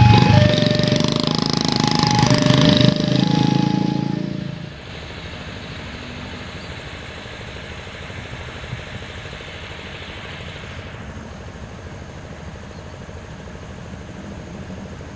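A railway level-crossing warning alarm sounds in two alternating notes, each about half a second long, over the running engines of waiting vehicles. It stops abruptly about four and a half seconds in, leaving a steady quiet background with a thin high whine.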